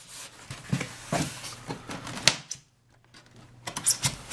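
Polystyrene foam packaging being handled: scattered creaks, rustles and light knocks of the foam inserts and their tape, with one sharp knock a little over two seconds in and a short lull just before the end.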